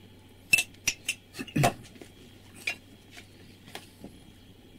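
Sharp clinks and knocks of a metal spoon against dishes while salt is added to a bowl. Several come close together in the first two seconds, then a few lighter ones are scattered after.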